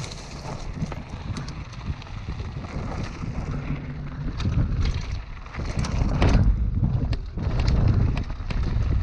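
Mountain bike riding down a dirt trail: tyres crunching over gravel and loose rock, and the bike rattling with sharp knocks as it hits stones, over wind rumble on the microphone. It grows louder and rougher about halfway through as the trail turns rocky.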